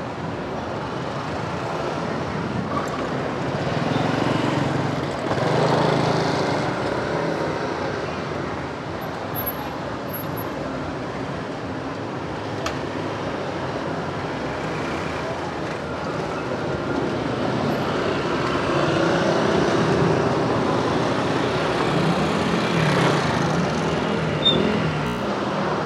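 Street traffic noise: a steady wash of passing motor vehicles, growing louder as vehicles go by about four to six seconds in and again for several seconds near the end.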